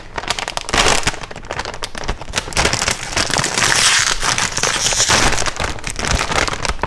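A bag of SkinnyPop popcorn being opened and handled: the snack bag crinkles and crackles continuously, with dense, irregular crackles.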